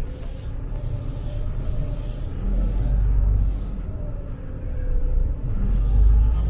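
City bus running, heard from inside: a low engine rumble that swells twice with a whine rising and falling in pitch. A high hiss comes and goes in even pulses about twice a second.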